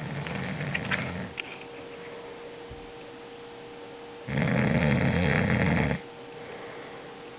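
A sleeper snoring: a softer breath sound fades out about a second in, then after a quiet pause comes one loud snore lasting under two seconds that starts and stops abruptly.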